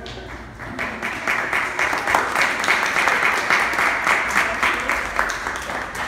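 Audience applauding an award announcement. The clapping builds about a second in, holds steady, then thins out near the end.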